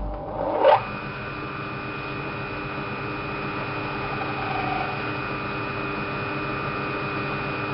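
Cosmos metal lathe switched on: the motor and spindle spin up in under a second, then run steadily with a hum and a steady high whine, turning stock between centres driven by a lathe dog.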